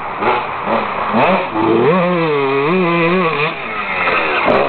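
Husqvarna WR 125 two-stroke single-cylinder engine being revved during warm-up: a couple of short throttle blips, then a rev held for about a second and a half with a wavering pitch from about two seconds in, dropping back, and another rev rising near the end.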